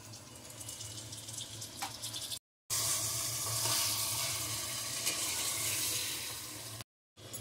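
Mutton chops sizzling as they fry in hot oil in an aluminium pressure cooker, cooking off the water they release. The sizzle is faint at first, drops out briefly about two and a half seconds in, comes back louder, and drops out again near the end.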